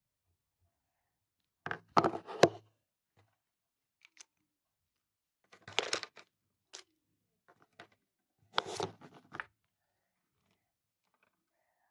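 Handling noise close to the microphone: rustling and knocks in three short bursts, with a few faint clicks between, as the phone is moved and felt-tip markers are swapped.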